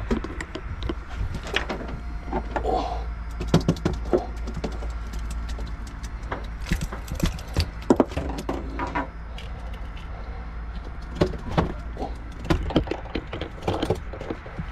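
Scattered clicks, knocks and light rattles of fishing gear and boat fittings being handled on deck, over a steady low hum.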